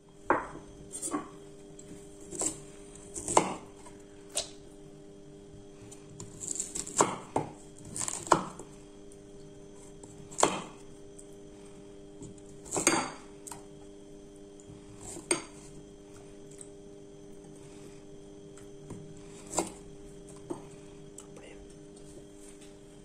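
Chunks of peeled cassava being put one by one into a saucepan of water, giving irregular knocks and clatters against the pot and a ceramic bowl.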